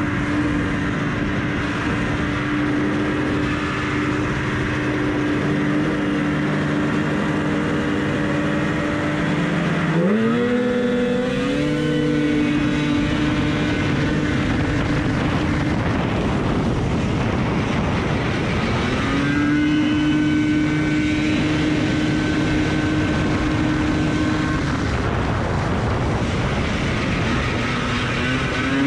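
Vintage Rupp Nitro free-air snowmobile's two-stroke engine running hard through an ice-oval race, with other race sleds running alongside. The engine holds a steady high note, sweeps sharply up in pitch about ten seconds in, then settles onto a steady high note again.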